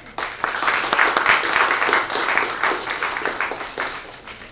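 Audience applause that swells within the first half second, is fullest a second or two in, then tapers off toward the end.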